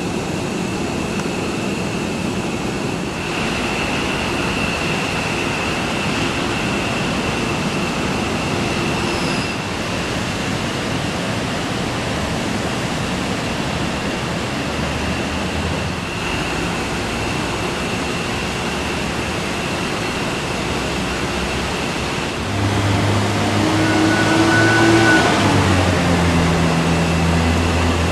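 Distant F-15 Eagle fighters' jet engines running as the jets taxi: a steady rushing drone with a thin high whine. About two-thirds of the way in it grows louder, and a deeper low hum joins it.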